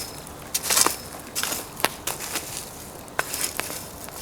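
Pine firewood fire crackling, with a scatter of sharp, irregular pops and a short rustling burst about a second in.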